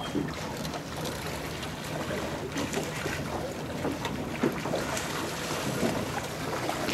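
Steady wind and water noise on open water, with a faint low hum and a few faint knocks.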